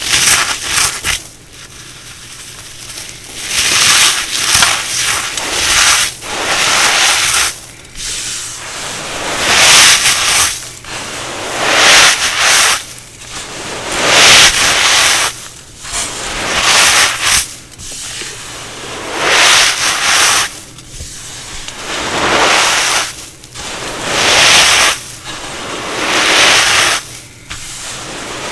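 Brittle hardened cornstarch pieces being crushed, a crackling crunch in about a dozen separate squeezes, each a second or two long and coming roughly every two seconds.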